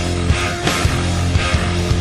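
Heavy rock music with distorted guitars and a steady driving drum beat.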